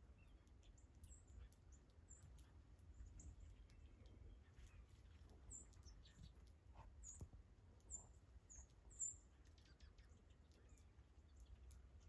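Faint, short, high chip notes from a ground-feeding flock of small songbirds in snow, scattered throughout, with a quick run of louder chips a little past the middle, over a low steady rumble.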